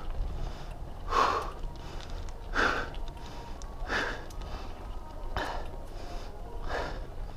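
A cyclist breathing hard while pedalling: five heavy breaths, evenly spaced about a second and a half apart, over a low steady rumble.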